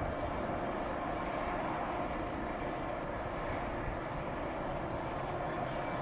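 Diesel locomotives idling in a depot: a steady, unbroken drone of engine noise with a faint hum of steady tones over it.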